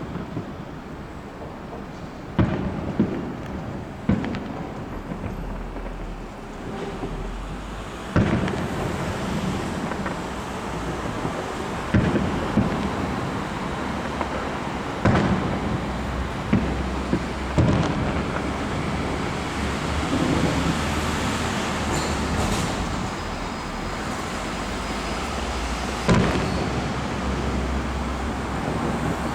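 Fireworks display: aerial shells bursting in a string of about a dozen irregularly spaced booms, over a continuous background of rumble and crackle.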